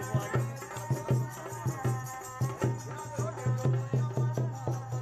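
Background music with a quick, regular drum beat and a melody line.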